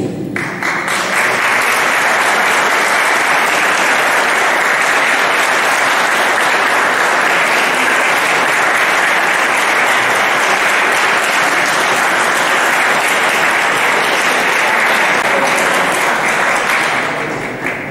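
Audience applauding steadily, starting about half a second in and dying away near the end.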